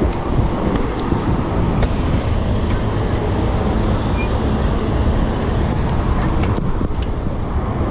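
Steady city road traffic noise heard from a moving bicycle, a low rumbling wash with a few faint sharp clicks.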